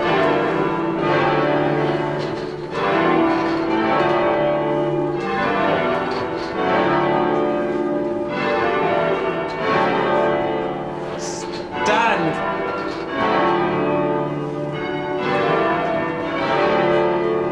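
Church tower bells rung full-circle from ropes and fired together as chords, so that the bells strike at once. A chord rings out about every two seconds, each one humming on into the next.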